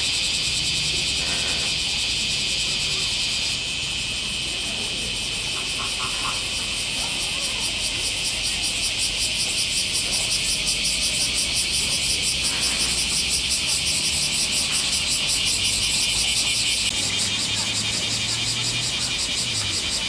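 Loud chorus of cicadas buzzing in a fast, even pulsing rhythm.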